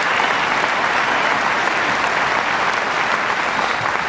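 Large crowd applauding steadily, a dense, even clapping that holds its level throughout.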